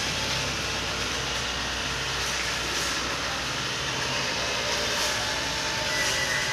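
Steady rushing noise with a low rumble underneath and no distinct events.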